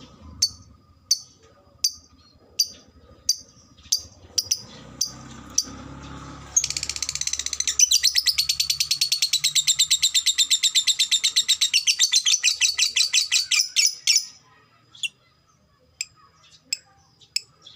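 Lovebird giving sharp single chirps about once every 0.7 seconds, then a long, rapid chattering trill (ngekek) lasting about eight seconds, then single chirps again. This long ngekek is the call prized in fighter lovebirds.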